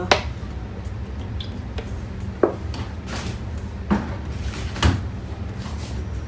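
Four separate sharp kitchen knocks over a steady low hum, the first as the cooking-oil bottle is lifted away from the wok after pouring.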